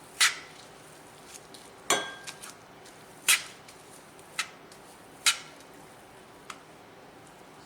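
Kitchen utensil clinking and tapping against dishes while tamales are being spread: about six sharp clicks at irregular intervals, the one about two seconds in ringing briefly.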